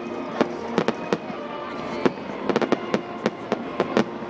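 Fireworks display: over a dozen sharp bangs of bursting shells at irregular spacing, coming thicker in the second half.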